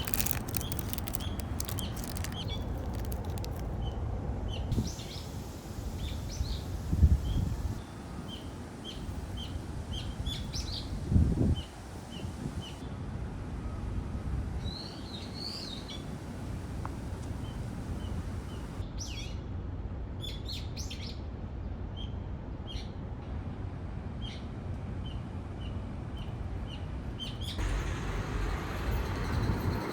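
Small birds chirping, short high chirps repeated about once a second throughout, over a steady low outdoor rumble. There are a few dull low thumps, loudest about a third of the way in.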